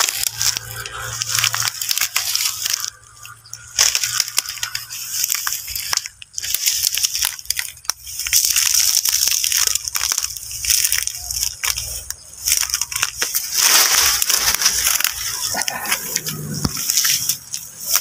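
Dry grass and dead banana leaves rustling and crackling as people push through the brush on foot, with irregular crunches.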